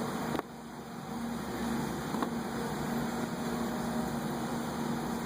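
A steady mechanical hum with a hiss over it. It dips sharply about half a second in, then builds back up and holds.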